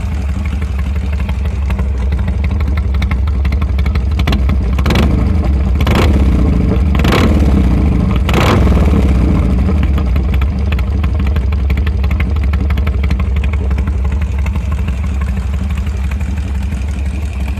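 Harley-Davidson Sportster 883 R's air-cooled V-twin running through a Red Thunder aftermarket exhaust: steady idle, with four quick throttle blips between about five and nine seconds in, then back to idle.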